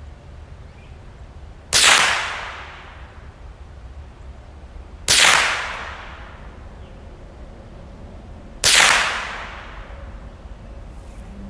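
Three shots from a Marlin Model 60 .22 semi-automatic rifle, about three and a half seconds apart, each trailing off over about a second. They make up a three-shot group fired while sighting in the scope.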